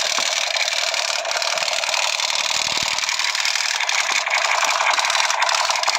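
Battery-operated light-up toy gun firing continuously: a steady, fast mechanical rattle and buzz.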